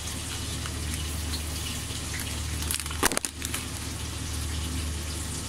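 Breaded chicken schnitzel frying in a pan of oil, a steady sizzle under a low hum, with one sharp knock about three seconds in.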